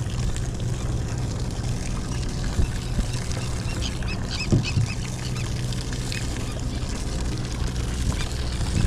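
Sportfishing boat's engine running with a steady low hum. A few short, high bird calls come in around the middle.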